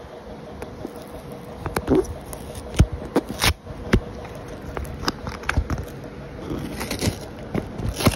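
Paper courier envelope being handled and opened by hand: irregular crackles and scrapes with scattered sharp clicks, the loudest a little under three seconds and about three and a half seconds in.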